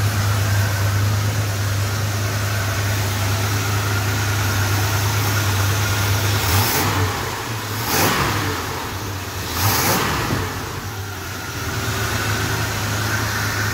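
Freshly rebuilt Chrysler 440 big-block V8 running on its first start-up after the rebuild, still untuned. It idles steadily, revs briefly two or three times a little past halfway when the throttle is blipped, then settles back to idle.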